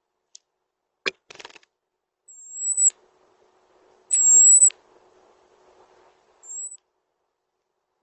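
European robin giving thin, very high, drawn-out calls, three in all, the middle one the loudest. About a second in there is a sharp tap followed by a brief rattle.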